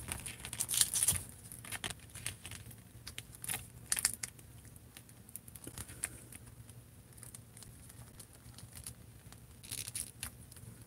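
Close handling noise from a plastic action figure being turned and rubbed between the fingers: a scatter of small clicks and scrapes. They are busiest just under a second in, again around four seconds, and near the end.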